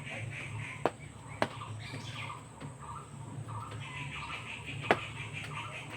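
Three sharp knocks of a knife cutting through boiled eggs, about a second in, a second and a half in, and near five seconds, over birds chirping steadily in the background.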